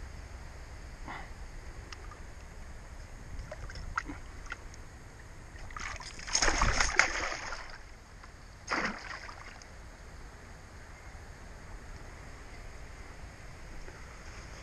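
Water splashing as a pike is let go by hand at the water's edge: a loud splash about six seconds in, lasting a second or so, then a shorter one about two seconds later.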